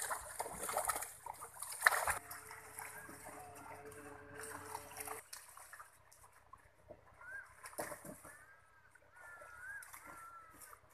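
Water splashing and sloshing as fish thrash in a seine net being hauled in by hand. The splashing is loudest in the first two seconds, then drops to a much quieter background.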